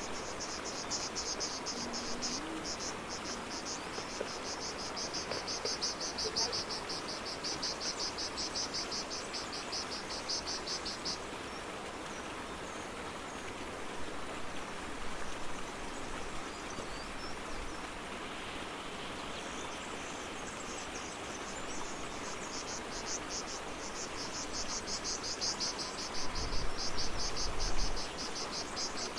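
Insects chirping in fast, even, high-pitched pulses, falling silent for several seconds midway and then starting again. A brief low rumble near the end is the loudest sound.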